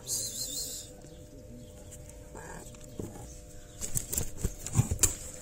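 A frightened kitten hissing once, briefly, at the start, followed near the end by a quick string of sharp clicks and knocks against cardboard.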